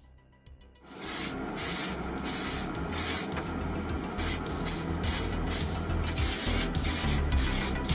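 Aerosol spray-paint can hissing in short repeated bursts, starting about a second in, as paint is sprayed onto a plastic model car body.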